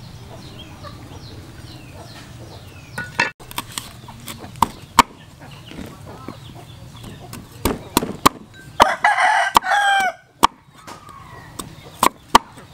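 Cleaver knocking on a wooden chopping board in irregular sharp chops as a rhizome is cut. A rooster crows once, loudly, for about a second just past the middle.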